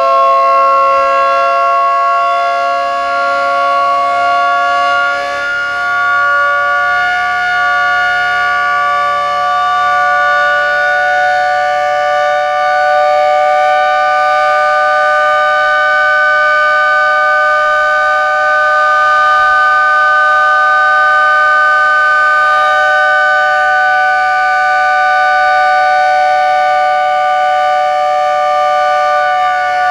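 220 V AC electric industrial motor siren, rated at 8000 RPM, wailing continuously and loudly with several tones sounding together. Its pitch creeps slightly upward over the first fifteen seconds or so as the rotor gathers speed, then holds steady.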